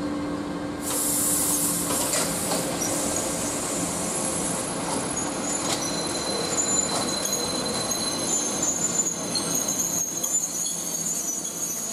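A long train of open coal wagons rolling slowly past, with high, thin squealing from the wheels and brakes that starts about a second in, and scattered clicks and clacks of wheels over the rail joints.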